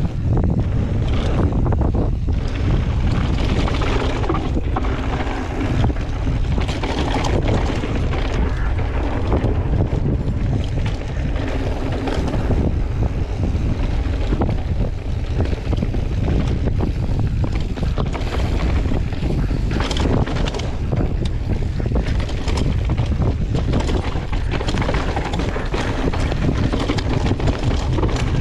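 Wind buffeting the microphone of a camera on a mountain bike riding a trail, with many short knocks and rattles from the bike over rough ground.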